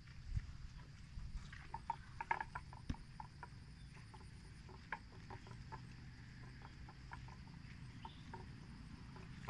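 Faint outdoor field ambience: a steady high insect drone with scattered small clicks and chirps, over a low rumble.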